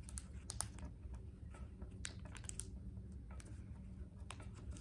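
Origami paper being folded and creased by hand on a tabletop: faint, irregular crinkles and light clicks.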